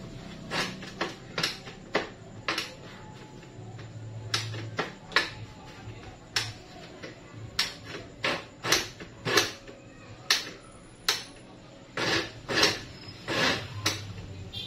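Irregular sharp knocks and clicks of a blender jar being handled, seated and fitted with its lid on the motor base, without the motor running.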